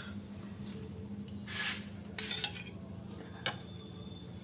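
A spoon scraping and knocking against a bowl as spoonfuls of yogurt go onto raw chicken for a marinade: a few short scrapes and a light tick over a faint steady hum.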